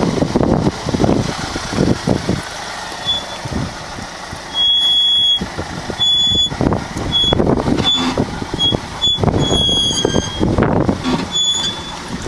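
Land Rover Freelander 1 crawling over a wet, rocky track: a loud, uneven rumble of the vehicle working over the rocks. From about three seconds in, short high-pitched tones come and go at irregular intervals, one longer than the rest.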